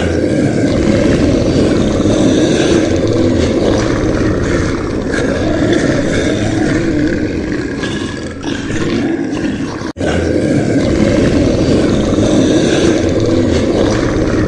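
Loud, continuous animal roaring, broken by a brief cut about ten seconds in.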